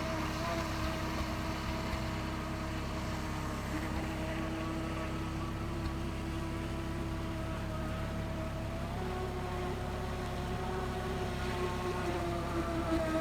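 Motor of a radio-controlled hydrofoil boat running at a steady whine over low water and wind noise, its pitch stepping up about nine seconds in and rising a little more near the end as the boat speeds up.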